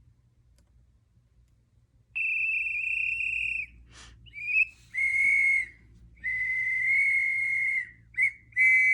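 A whistle blown in a series of blasts: a long steady blast about two seconds in, a few shorter ones, another long blast, then short blasts near the end.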